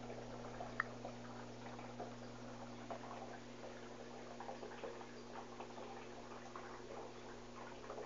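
Electrolux 13 kg washing machine running: a steady low motor hum with many small irregular clicks and drips, and one sharper click about a second in.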